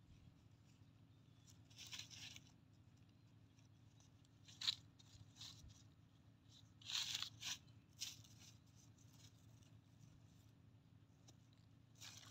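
Fingers scraping and digging in dry sandy soil and rustling dry grass and leaf litter, feeling for buried earthstar puffball mushrooms (hed phor). It comes in several short, faint bursts of scratching, the loudest a few seconds past the middle.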